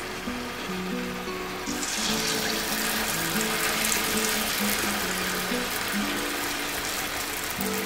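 Hot oil sizzling as batter-coated sweet dumplings deep-fry in a kadai. The sizzle swells to a loud hiss about two seconds in, over background music with a simple melody.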